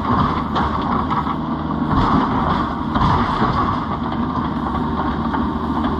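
Kubota KX71 mini excavator's diesel engine running steadily under load as the machine climbs steep trailer ramps, with a few faint knocks.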